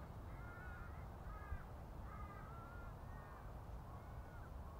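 Birds calling over and over outdoors, about five short arched, crow-like calls in a row, over a steady low rumble.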